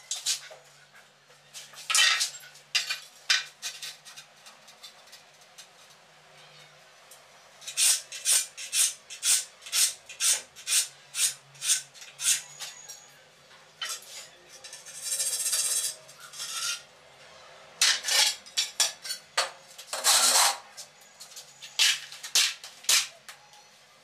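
Metal trowel and hand tools scraping and knocking on ceramic tile and mortar: runs of short sharp strokes about two a second, with one longer rasping scrape about halfway through.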